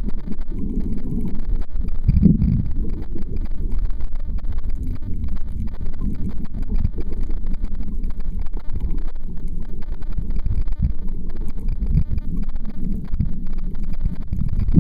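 Muffled low rumble of water moving against a camera held underwater, with scattered faint clicks and a louder swell about two seconds in.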